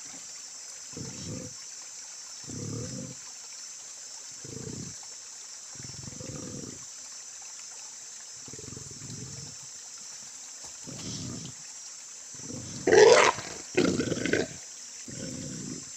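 Snared wild pig, a Bornean bearded pig, giving short low grunts every second and a half to two seconds. Near the end it lets out two loud squeals, a second apart, which are the loudest sounds.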